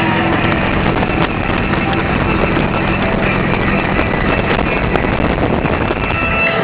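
Steady engine drone and wind rush of motorcycles cruising at highway speed, with wind buffeting the microphone.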